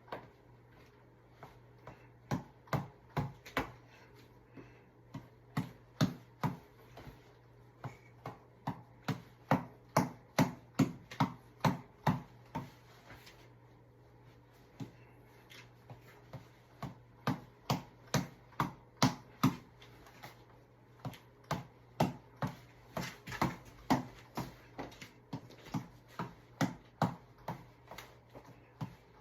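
Tap ball (boxing reflex ball on an elastic cord) being punched: sharp slapping hits in runs of about three a second, breaking off now and then and starting again.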